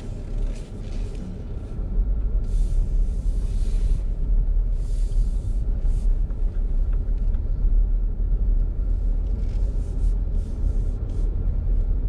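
Car engine and road noise heard from inside the cabin as the car pulls away and drives on: a steady low rumble that grows louder about two seconds in, with patches of tyre and wind hiss on top.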